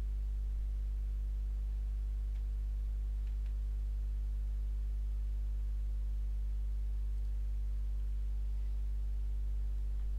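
Steady low electrical hum with several evenly spaced overtones, unchanging throughout, with a couple of faint clicks about two and three seconds in.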